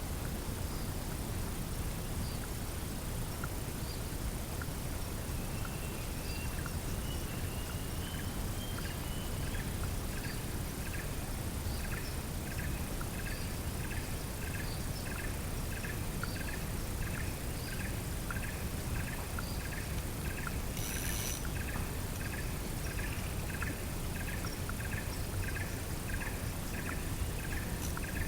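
Steady outdoor ambience of low rumble and hiss under a constant high whine. About a third of the way in, a chirping animal call starts and repeats about twice a second. A brief hissing burst comes near the end.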